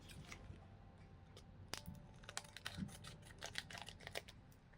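Faint, scattered clicks and soft rustles of trading cards being handled from a freshly opened booster pack.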